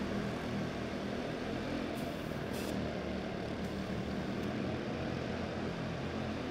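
Quarter midget race cars with Honda engines running together around a dirt track, a steady overlapping engine drone, with a brief crackle about two seconds in.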